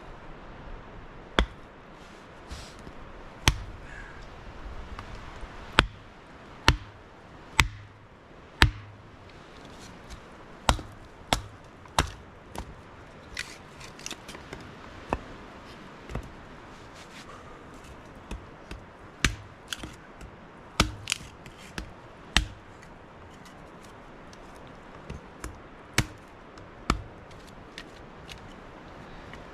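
Wood being split with a bladed chopping tool: about two dozen sharp, separate blows into wet black spruce, coming irregularly, sometimes in quick pairs, with a few short pauses.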